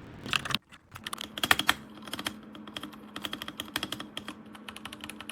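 Typing on an RK Royal Kludge RK61 60% mechanical keyboard: rapid, uneven keystroke clicks, with a brief pause about half a second in.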